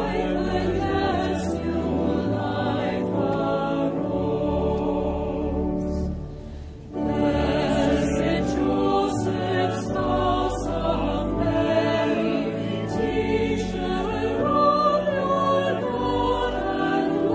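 A choir singing a hymn, with sustained chords over a low bass. The sound briefly drops away about six seconds in before the full choir comes back.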